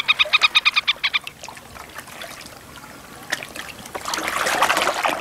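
Water trickling and lapping around a boat on a lake, with a bird giving a fast, even run of calls during the first second. The water gets louder near the end.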